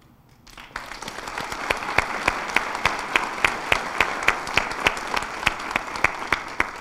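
Audience applauding, building from about half a second in, with one nearby pair of hands standing out in sharp claps at about three or four a second; the applause fades near the end.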